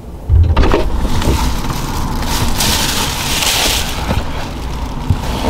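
A thump, then rustling and handling noise over a steady outdoor hiss as a man leans into a car through its open door.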